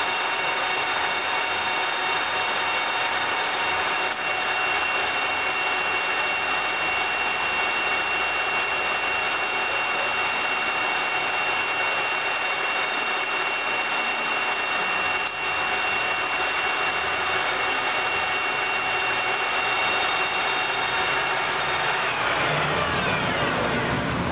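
Graziano Sag 12 geared-head engine lathe running, its headstock gears giving a steady whine of several tones over a mechanical hum. About two seconds before the end the whine falls in pitch as the spindle slows.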